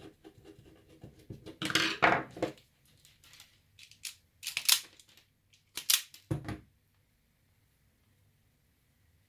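Electrician's hand tools working on wiring: light clicks of a screwdriver at a switch's screw terminal, a louder scrape about two seconds in, then a self-adjusting wire stripper gripping and pulling the insulation off thin copper wire in two short, sharp snaps.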